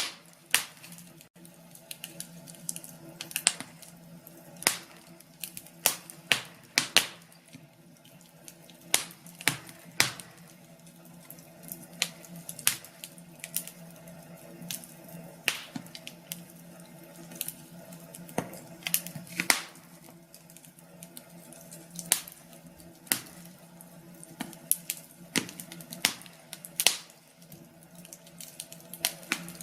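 Wood fire in a fireplace crackling, with irregular sharp pops and snaps over a faint steady hum.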